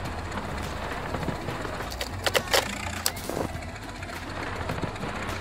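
Vehicle engine running steadily, with a few sharp clicks or knocks between two and three seconds in.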